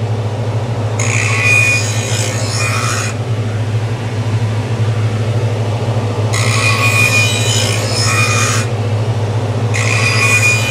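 A skate-sharpening grinder's motor hums steadily while a stainless steel hockey skate runner is passed along the grinding wheel three times, each pass a harsh grinding stretch of about two seconds with short gaps between. The passes are levelling the steel before it is sharpened.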